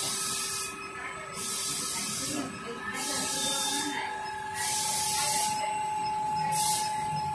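Rewinder machine running its printed packaging film past inkjet coding heads: a steady motor hum with a thin whine, broken by bursts of hiss about a second long that switch on and off roughly every second, the last one short, near the end.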